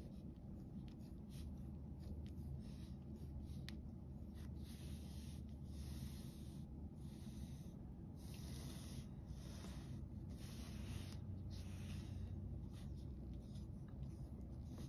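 Pen tip scratching across paper in a run of short strokes as digits are written and the lines of a box are drawn, over a low steady hum.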